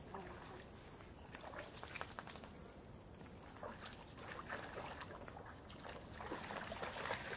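Dogs wading and pawing in shallow water at a muddy pond edge: faint, light splashing and sloshing, a little louder near the end.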